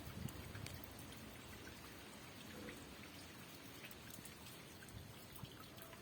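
Rain falling steadily, with individual drops pattering as scattered light ticks over a soft, even hiss.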